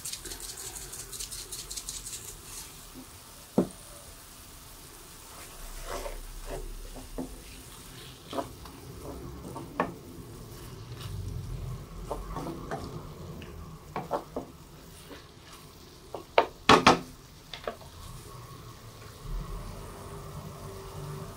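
Black pepper shaken from a shaker with a fast rattle for the first couple of seconds, then a wooden spatula stirring chicken slices in a pan, knocking against the pan several times, loudest about three-quarters of the way through. The chicken sizzles and simmers in its juices underneath.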